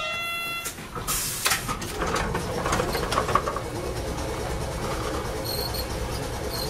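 Old tram running along street track: a steady low rumble of motors and wheels with light rail clatter. It opens with a brief high steady tone that cuts off, then a few sharp knocks.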